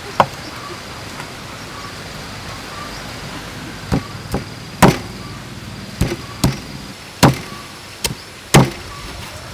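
Meat cleaver chopping through pork ribs on a thick wooden chopping board: one sharp chop just after the start, then a run of eight irregularly spaced chops from about four seconds in.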